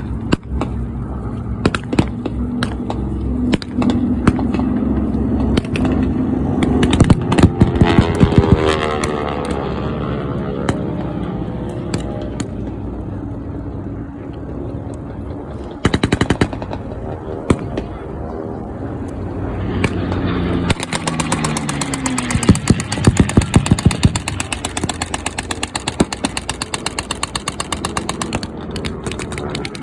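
Piston-engined warbird fighters passing low overhead, their engine note rising and falling twice, over repeated gunshots and rapid machine-gun bursts from a staged ground battle.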